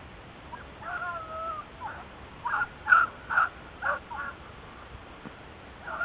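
Beagles baying as they give tongue on a rabbit's scent: a long drawn-out bay about a second in, then a run of about five short, sharp barks.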